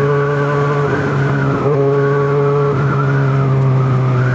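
Yamaha XJ6's 600 cc inline-four engine running at a steady cruise while riding, its pitch easing slightly downward.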